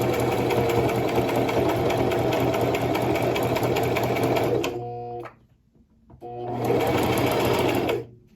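Electric sewing machine running fast, its needle clattering rapidly. Its motor winds down and stops about five seconds in, then starts up again for under two seconds and stops near the end.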